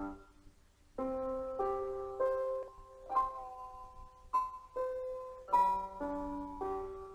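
Background piano music: a slow melody of single held notes. It starts about a second in, after a short pause.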